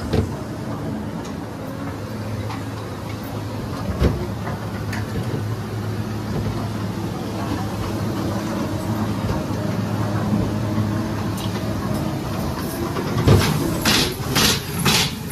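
Ghost train car running along its track with a steady low rumble and hum, and a single knock about four seconds in. Near the end a run of sharp, evenly spaced clacks begins, two or three a second.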